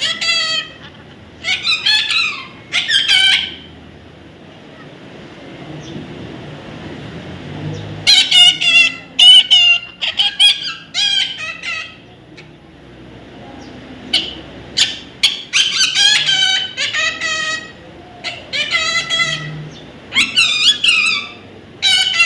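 Parrot calling: clusters of short, loud, high-pitched squawks, with pauses of a few seconds between bursts.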